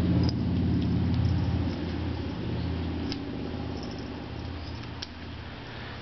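Domestic cat purring right at the microphone, a steady low rumble that grows fainter through the second half.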